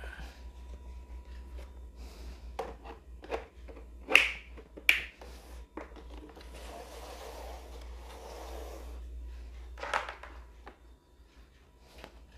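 Hard plastic panels of a Napolly plastic locker cabinet clicking and knocking as they are handled and snapped into place, the loudest knocks about four and five seconds in and another near ten seconds. In between, a few seconds of plastic sliding and scraping against plastic.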